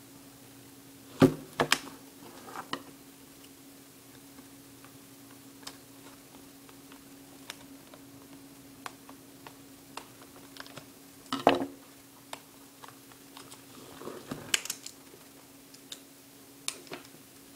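Scissors snipping and clicking through plastic packaging in irregular cuts, the loudest snips about a second in and twice in the second half. A steady low electrical hum runs underneath, the recording's static.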